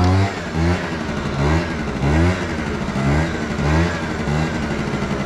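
Piaggio Zip 50 scooter engine revving in repeated surges, about one every 0.7 seconds, as the throttle is blipped on and off to lift and hold the front wheel in a wheelie.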